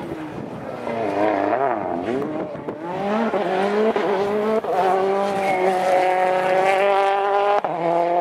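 Rally car engine revving hard through a hairpin, its pitch rising and falling with the throttle. It then holds high revs and climbs slowly in pitch as the car accelerates away, with brief breaks at gear changes.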